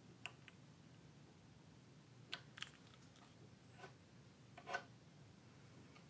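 Near silence, with a handful of faint short clicks and taps of small tools being handled. The loudest comes about three-quarters of the way through.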